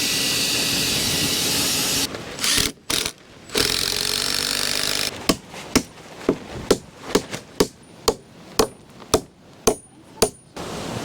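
Strong wind rushing over the microphone, then from about five seconds in a quick, uneven run of hammer blows, around two to three a second, with a faint metallic ring.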